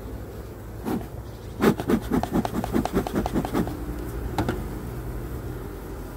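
Wooden hive frames being pushed and scraped against each other and the hive box by hand: a quick run of about ten scraping strokes over two seconds, with a knock before and a couple of knocks after.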